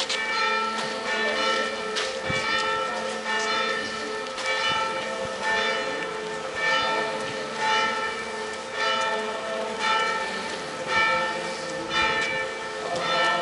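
Church bells tolling for a funeral. They are struck about once a second, and each ringing tone carries on between strikes.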